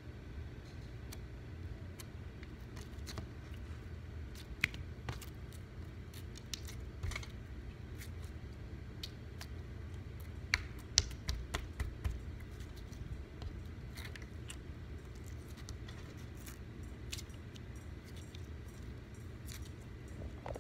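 Fingers poking a small piece of slime: scattered faint little clicks and pops, barely audible, over a low steady rumble.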